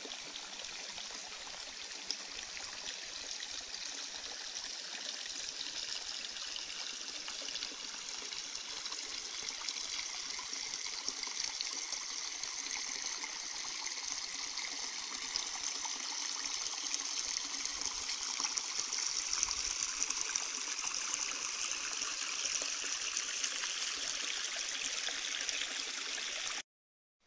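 Stream water running steadily, a continuous rushing trickle that cuts off abruptly near the end.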